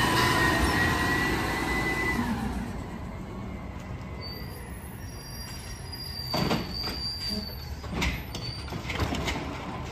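Natural-gas side-loader garbage truck with its hydraulics whining, the pitch rising as the automated arm pulls in, cutting off about two seconds in. The truck then runs more quietly, with three sharp knocks in the last few seconds as the arm reaches out to the next cart.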